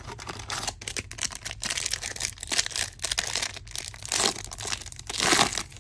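Wrapper of a baseball card pack being torn open and crinkled: a dense crackling rustle with many small clicks, louder about four seconds in and again just after five.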